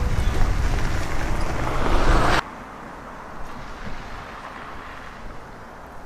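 Snowstorm street noise of wind and traffic: a loud rushing sound with a deep rumble that swells for about two seconds, then cuts off abruptly, leaving a much fainter steady background.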